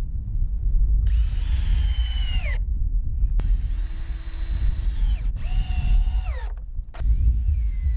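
Cordless drill driving screws into a wooden corner brace in four short runs, each motor whine dropping in pitch as the drill slows and stops. Heavy wind rumble on the microphone underneath.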